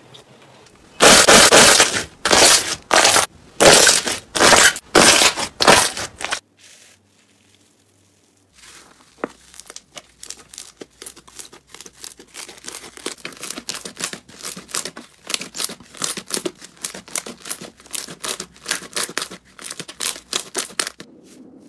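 Slime being squeezed and pressed, making crunchy sounds. First comes a run of about eight loud crunching squishes. After a short pause comes a fast, irregular stream of small crackles and pops.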